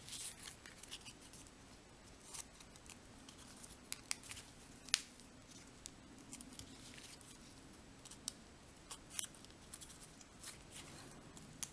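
Faint handling of small punched paper petals: scattered light clicks and soft rustles as the pieces are picked up and pressed onto glue dots.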